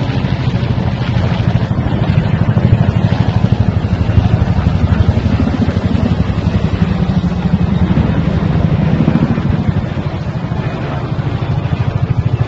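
Chinook tandem-rotor helicopters flying low overhead: a loud, fast, steady thudding of the rotor blades.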